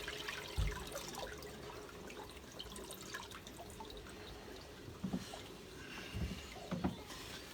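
Water dripping and trickling from a leak seeping through the walls and ceiling of a flooded room, faint scattered drips, with a few soft knocks.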